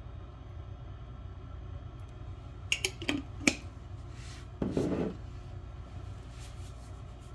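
Small glass jar clinking as it is handled and set down: a few sharp clicks about three seconds in, then a short scuffing noise near five seconds. A steady low hum runs underneath.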